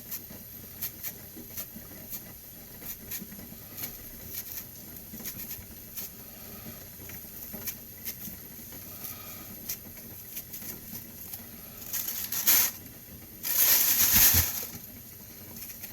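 Knife peeling a pear: quiet, scattered small clicks and scrapes of the blade against the skin. Near the end come two short, loud hissing rushes of noise, the second one longer.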